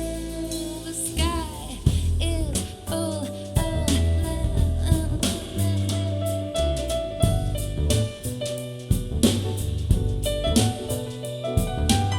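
Soul jazz track playing, with drum kit, bass line and a gliding melodic line.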